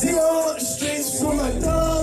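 Live rap performance: a male vocalist singing into a microphone over a loud hip-hop backing beat. The deep bass drops out shortly after the start and comes back about a second and a half in.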